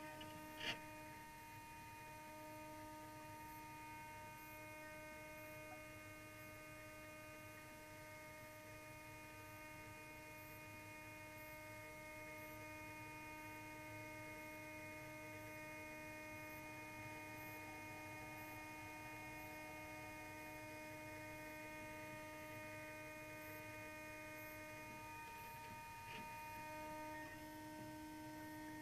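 Steady electrical hum and whine, several fixed tones at once, from the onboard electronics of a radio-controlled model sailboat. There is a single click about a second in, and the lowest tone drops out briefly near the end.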